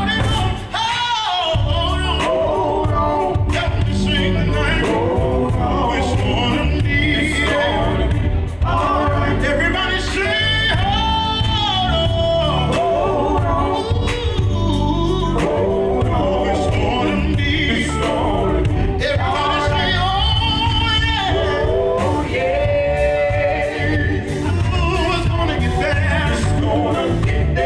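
Live gospel quartet music: voices holding and bending long sung notes over instrumental accompaniment with a steady bass.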